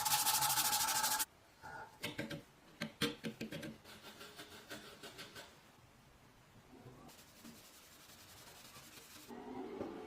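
A power tool runs with a steady whine and cuts off about a second in. Quieter scraping and clicking of metal being worked follows, then a faint hiss.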